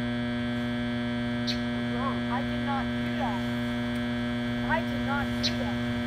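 A steady electrical hum with a stack of even overtones swamps the sound track, the audio fault that the uploader blames on a broken generator. A few short rising and falling chirps come through it about two seconds in and again near five seconds.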